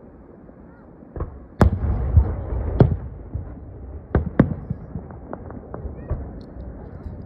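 Aerial firework shells bursting. There are sharp bangs about a second in, the loudest around one and a half and three seconds in, and two more just after four seconds. Low rumbling echoes follow the big bangs, and a quick run of smaller pops comes around five to six seconds.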